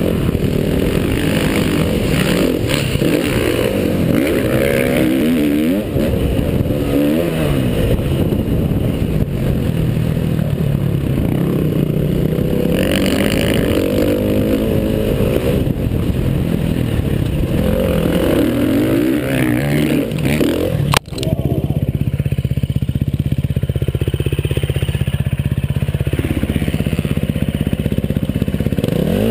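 Motocross dirt bike engine revving up and down as the rider accelerates and shifts around the track, heard close from the bike-mounted camera. A sharp click about 21 seconds in, after which the engine note runs steadier.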